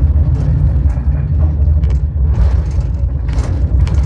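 Cable car running along its inclined track down to the undersea tunnel: a loud, steady low rumble, with a few short noisy bursts over it in the second half.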